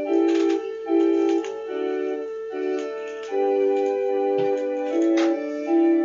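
Background music: a keyboard with an organ- or electric-piano-like sound plays held chords that change every second or so, with a few percussive hits over them.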